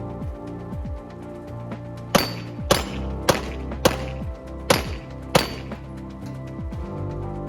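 Six pistol shots fired in quick succession, roughly one every half second, over background music.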